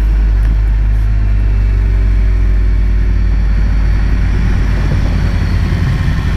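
BMW S1000R's inline-four engine running in second gear at low speed, revs easing off slightly, heard from the bike under a heavy steady low rumble.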